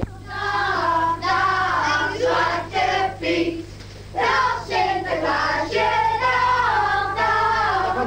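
A group of children singing a song together in phrases, over a steady low electrical hum from the recording. A sharp click comes right at the start.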